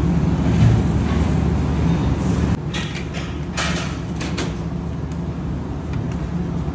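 Steady low machine hum of commercial kitchen equipment, which drops in level about two and a half seconds in, with a few light clicks and rustles soon after.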